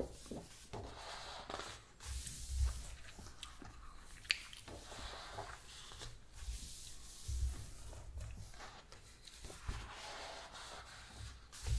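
Pages of a large hardcover book being turned one after another: stiff paper swishing and rustling under the hands, with a few soft thumps as pages settle and a sharp tick near the middle.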